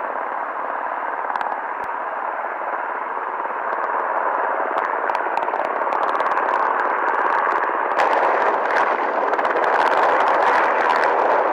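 UH-60 Black Hawk helicopters, their rotors and turbines heard as a loud, heavily distorted rushing noise that grows louder about eight seconds in.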